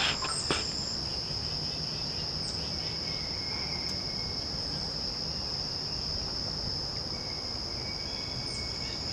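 Steady high-pitched chorus of insects, with a few faint clicks in the first half second.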